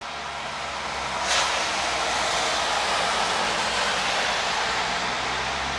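Car tyres hissing on a wet road as traffic passes, a steady wet-road rush that swells about a second in, with a short sharp burst at that point.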